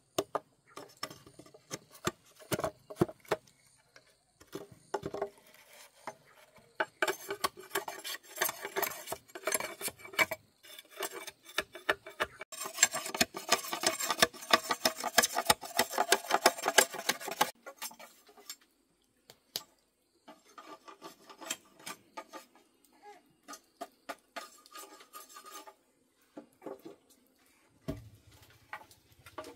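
Kitchenware clattering: many quick clinks and knocks of utensils against dishes and pots, thickening into a dense clatter for about five seconds past the middle.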